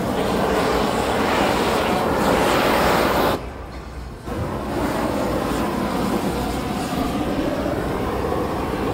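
Steady rushing noise of several handheld glassworking gas torches held on hot glass. It drops away sharply for about a second three and a half seconds in, then returns.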